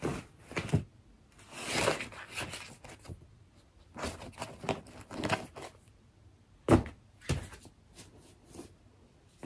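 Tarot cards being shuffled and handled by hand, in bursts of rustling and light slaps. Two sharp thuds about seven seconds in, decks of cards knocking over and falling.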